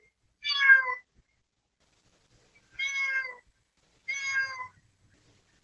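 A cat meowing three times, one or two seconds apart. Each meow lasts about half a second and drops in pitch at the end. The first is the loudest.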